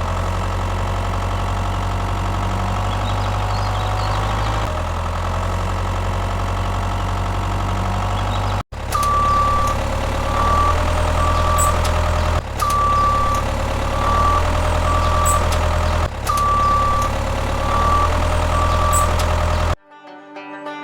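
Heavy construction-vehicle engine running steadily in several spliced takes. From about nine seconds in, a high warning beep repeats in a long-short-short pattern, like a reversing alarm.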